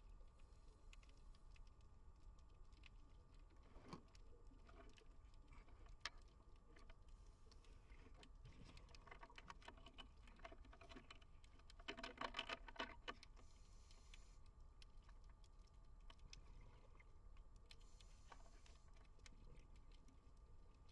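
Faint underwater ambience: scattered clicks and crackles, with a short cluster of rapid clicks about twelve seconds in.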